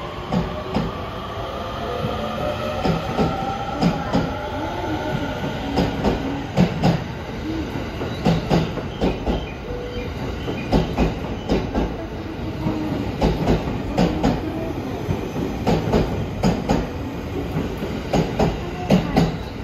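E231 series electric multiple unit pulling away and passing close by. Its traction motor whine rises in pitch during the first few seconds as it accelerates, over a steady running rumble. The wheels clack over track joints again and again, often in pairs, as the cars go by.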